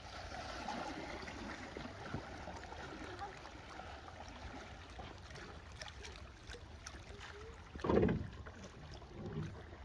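Water sounds around a small kayak on the water, with wind rumbling on the microphone; a single louder low thump about eight seconds in.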